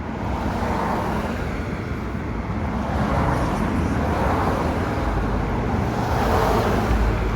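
Road traffic: cars passing one after another, each swelling and fading, with a low rumble building in the last couple of seconds.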